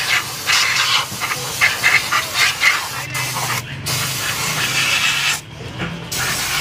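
Hand-pumped pressure sprayer jetting liquid onto a metal motorcycle part, a steady hiss of spray splashing over the metal into a basin. The spray breaks off briefly twice, then cuts out for under a second near the end before starting again.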